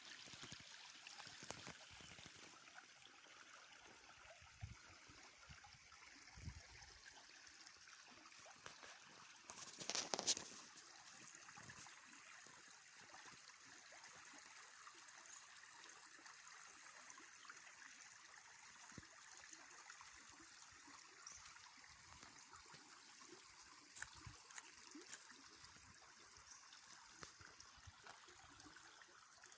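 Faint trickling of a small stream. About ten seconds in, a brief, louder noise rises above it.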